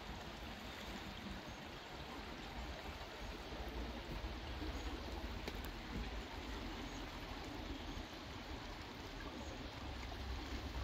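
Shallow creek flowing: a steady rush of running water, with a low rumble underneath.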